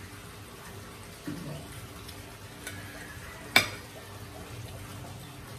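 Small eating noises over a steady background hiss, with one sharp clink of a metal spoon against a plate about three and a half seconds in.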